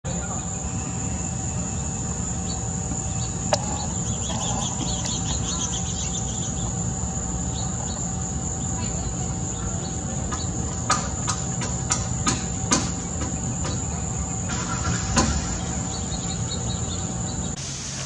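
Steady high-pitched drone of a chorus of insects, with short bird chirps between about four and six seconds in and a few sharp clicks later on; the drone cuts off just before the end.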